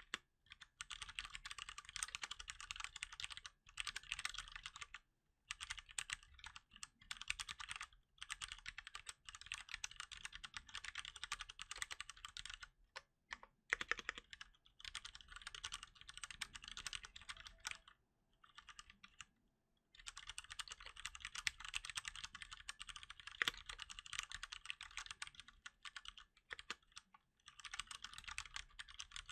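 Fast typing on a Cherry MX Board 3.0 S mechanical keyboard with Cherry MX Brown tactile switches, dense runs of key clacks broken by several short pauses, the longest about two seconds a little past the middle.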